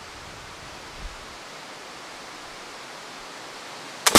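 Steady outdoor background hiss, then right at the end a short sharp snap followed a split second later by the loud shot of a .50 caliber flintlock rifle, which rings out and fades away.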